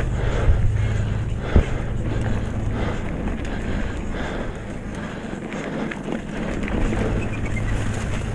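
Retro Norco Bush Pilot mountain bike riding over rough trail: steady wind buffeting on the microphone with tyre and frame rumble, and two sharp knocks from bumps about half a second and a second and a half in.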